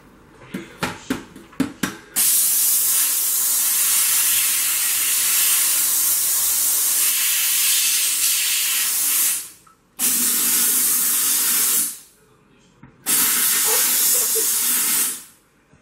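Sauber Brilliance steam cleaner: a few sharp clicks, then three loud bursts of steam jetting with a steady hiss. The first burst lasts about seven seconds, the next two about two seconds each, and each stops abruptly.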